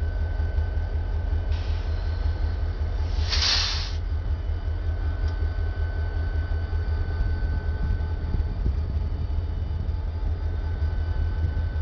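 Diesel locomotives rolling slowly past close by, a deep steady engine rumble. A short hiss cuts in about three seconds in and lasts under a second.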